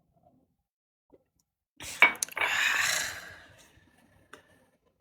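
A person's long noisy breath out close to the microphone, starting sharply with a click about two seconds in and fading away over about a second and a half.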